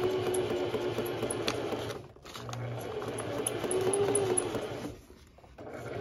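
Electric sewing machine stitching unthreaded through a sheet of paper in short runs, the motor whine rising and falling with speed. It stops briefly about two seconds in and again near five seconds, then starts again just before the end.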